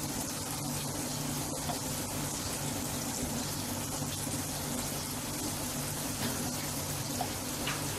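Paneer slabs sizzling in oil in a grill pan over a low flame: a steady hiss with faint scattered crackles, over a low steady hum.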